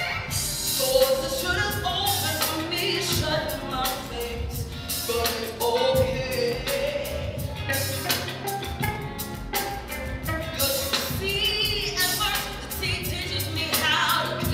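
Solo violin playing a melody live over a backing beat with drums and bass.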